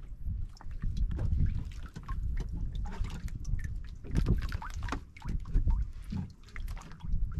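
Water lapping and splashing irregularly against the hull of a small outrigger boat, over a low rumble of wind on the microphone.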